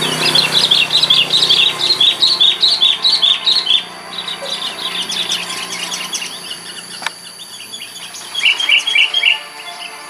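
Sooty-headed bulbuls calling: fast runs of bright chirps, loudest for the first four seconds, weaker for a while, then another loud burst about nine seconds in.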